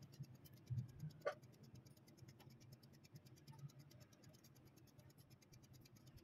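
Near silence with faint handling noises: a few soft knocks and a brief light click about a second in as strips of grilled eggplant are laid into a round aluminium pan, over a faint low hum.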